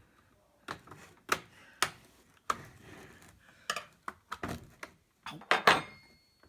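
About ten irregular sharp clicks and knocks of hard plastic as a laptop's case and parts are handled during disassembly, bunched together near the end.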